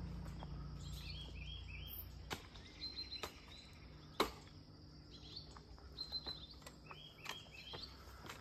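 Faint bird calls: short high chirps repeated in quick little series, several times. A low hum fades out over the first couple of seconds, and there is a sharp click about four seconds in.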